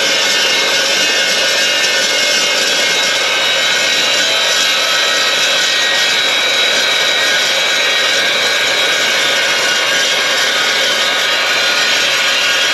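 Evolution S380CPS 15-inch chop saw's carbide-tipped blade cutting through 1/2-inch-thick 4 by 8 steel angle: a steady, loud, high-pitched cutting noise that holds even throughout. The saw stays at speed under the load, without struggling or straining.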